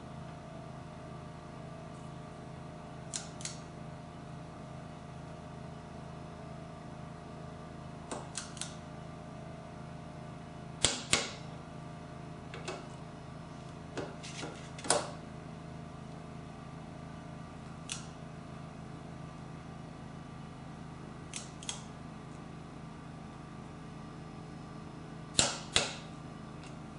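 Socket wrench tightening the motorcycle's 17 mm handlebar riser bolts to 47 foot-pounds: scattered sharp metallic clicks, some in pairs, the loudest pairs about 11 seconds in and near the end. A steady low hum runs underneath.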